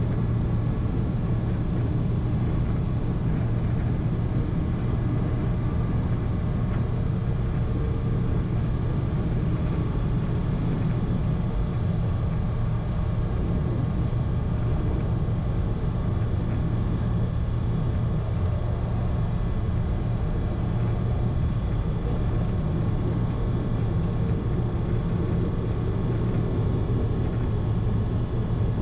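A 1920s CPH railmotor running along the track: a steady engine drone with low rumble.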